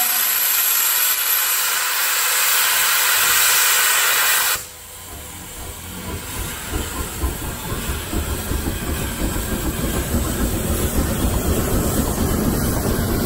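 Shay geared steam locomotive: a loud, steady steam hiss that cuts off suddenly about four and a half seconds in. The locomotive then pulls away with rapid exhaust chuffs and a low rumble that grows louder.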